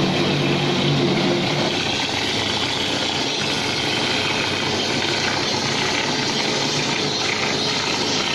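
Mortar sprayer at work: a steady hiss of compressed air blowing wet mortar out of a hand-held spray gun onto a wall. A machine hum runs under it and drops out about two seconds in.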